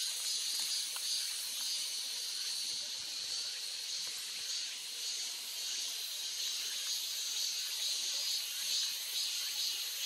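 Steady high hiss of outdoor ambience at a clear mountain stream.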